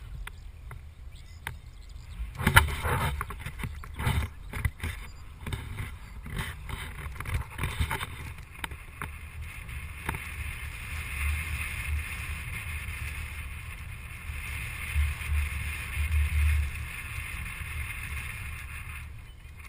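A vehicle driving on a narrow paved road, heard through a camera mounted outside the vehicle: wind buffets the microphone over a low rumble, with a cluster of knocks and thumps about two to four seconds in. A steady hiss comes in about halfway through and stops just before the end.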